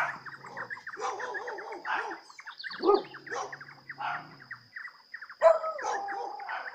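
Dogs barking, the loudest bark about five and a half seconds in, over many birds chirping rapidly and a steady high-pitched whine.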